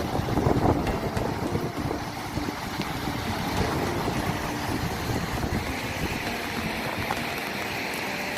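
Stormy outdoor noise: wind buffeting the microphone over a low rumble, loudest in the first second and then a steady rush.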